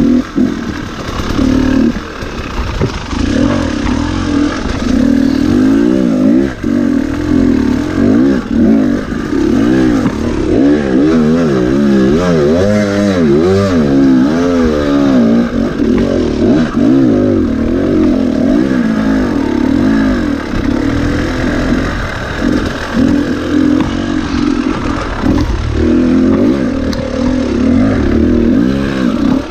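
Husqvarna TE300 dirt bike's two-stroke single-cylinder engine being ridden hard, the revs rising and falling constantly, with a run of quick rev swings around the middle.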